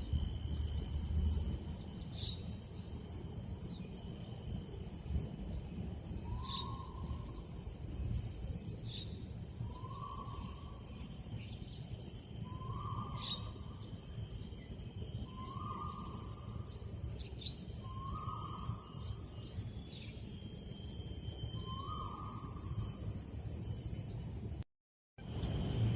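Forest ambience: many small birds chirping, with a short low hooting call repeated six times, about every two to three seconds, over a steady high tone and a low rumble. The sound cuts out for a moment near the end.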